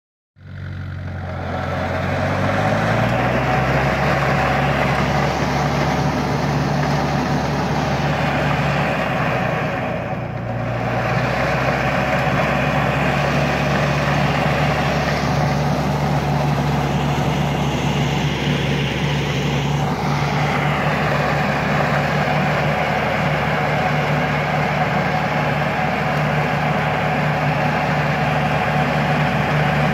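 Gafner Duo manure spreader running while spreading manure. Its engine revs up over the first two or three seconds, then runs steadily, with a brief dip in engine speed about ten seconds in.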